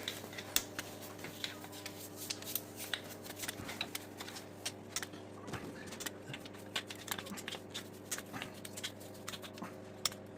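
Irregular light clicks and ticks of hand tools and small engine parts being worked and handled, several a second, over a steady low hum.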